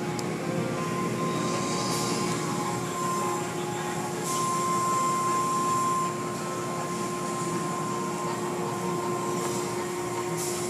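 Automatic tunnel car wash heard from inside the car: water and foam spraying and running over the car while the wash machinery runs with a steady hum and a high whine. The whine is stronger and the wash a little louder about four to six seconds in.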